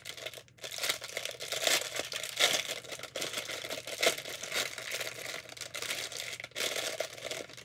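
Packaging crinkling and rustling in irregular bursts as a small product is unwrapped by hand.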